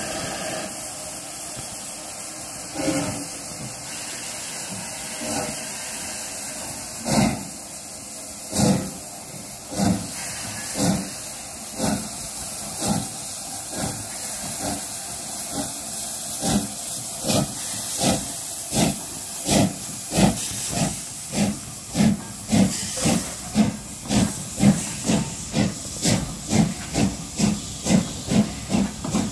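Southern Railway S15 class 4-6-0 steam locomotive No. 506 pulling away with its train, over a steady hiss of steam. Its exhaust beats start about one a second and quicken to two or three a second as it gathers speed.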